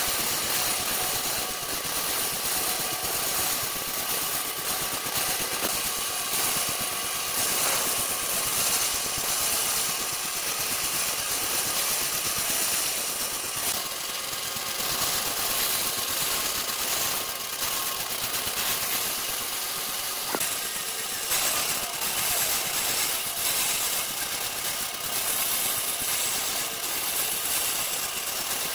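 Woodworking shop machinery running steadily: a constant motor-driven din with a bright hiss and a few faint steady tones, with small dips and surges in level.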